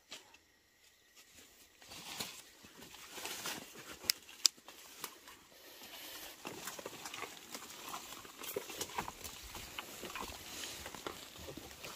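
Dry leaves and twigs rustling and crackling as someone moves through undergrowth, starting about two seconds in, with two sharp clicks about four seconds in.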